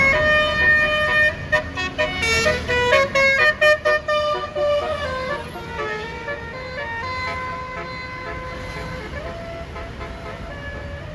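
Basuri telolet multi-trumpet air horn on a tour bus playing a melody. It starts with a quick run of short notes, then moves to longer held notes and grows fainter in the second half.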